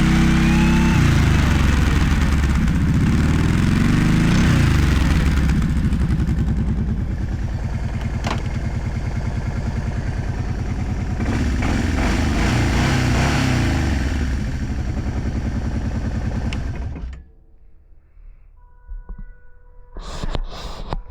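Kawasaki Prairie 650 V-twin ATV engine running through a modified, louder muffler, revved up and down, with one sharp crack about eight seconds in. The engine is shut off about seventeen seconds in.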